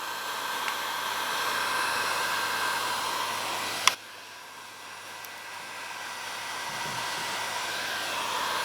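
Heat gun blowing steadily with a faint whine, heating a plastic water-bottle sleeve so it shrinks onto a hose joint. A sharp click about four seconds in, after which the blowing is quieter, then slowly grows louder again.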